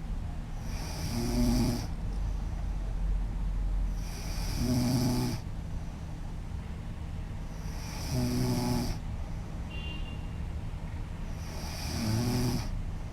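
A woman snoring loudly in her sleep: four buzzing snores, each lasting about a second, one every three and a half to four seconds.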